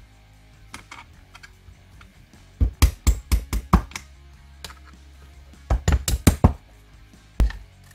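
Mallet tapping a pin punch to drive out the ATI Bulldog shotgun's takedown pins, which are still tight. There are two quick runs of about half a dozen sharp taps each, a few seconds apart, and one last tap near the end.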